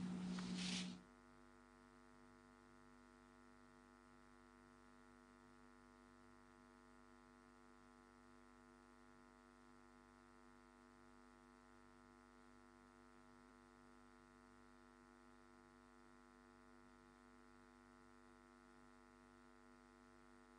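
Near silence with a faint, steady electrical hum. A short burst of noise cuts off suddenly about a second in.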